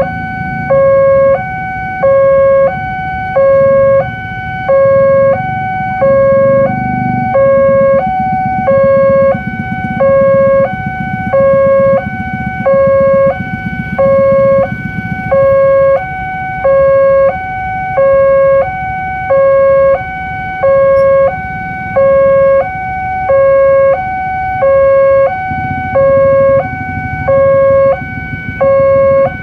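Electronic railway level-crossing warning alarm sounding steadily, alternating a lower and a higher tone in an even two-tone chime about one pair a second, with a low rumble underneath.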